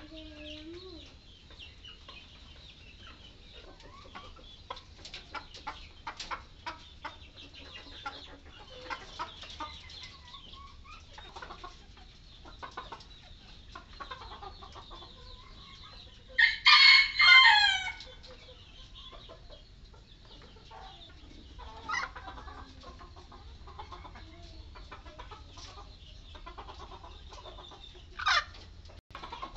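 Caged chickens clucking, with a rooster crowing once, loudly, about halfway through, and two short calls later on.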